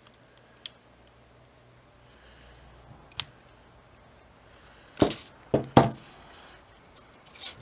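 Metal wrenches clinking and clattering: a couple of faint clicks, then several sharp metal clanks about five seconds in and one more near the end, as the wrenches come off the cable fitting and are put down on the table.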